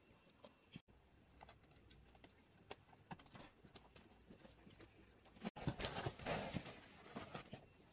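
Faint taps of bare feet on a dirt floor. Then, about five and a half seconds in, soil pours out of a plastic sack for about two seconds in a loose, gritty rush.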